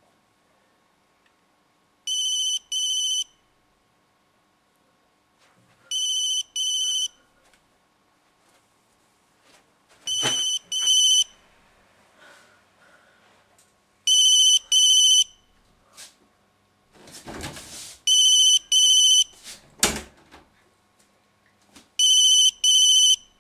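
Telephone ringing in a double-ring pattern: six pairs of short, high rings, a pair about every four seconds. A couple of knocks and a rustle fall between the rings in the second half.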